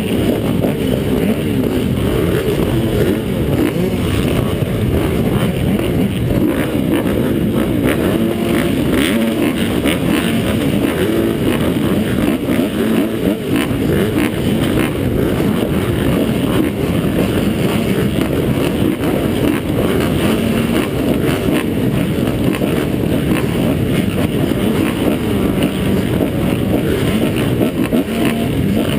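Dirt bike engines, the rider's own Kawasaki KX250F four-stroke among them, running at the starting gate: a steady, muffled low rumble.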